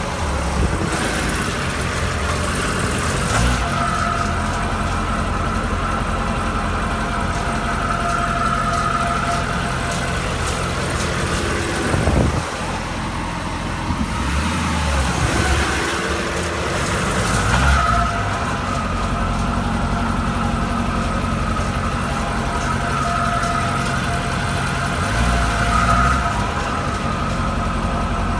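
2012 Chevrolet Corvette Grand Sport's 6.2-litre LS3 V8 running steadily, with the ticking that the owner hears when the car is in gear.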